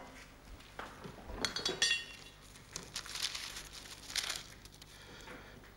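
Small handling noises on an altar: light clinks of a small metal bowl and soft rustling as objects are picked up and set down, a few separate touches with a brief ringing clink a little under two seconds in.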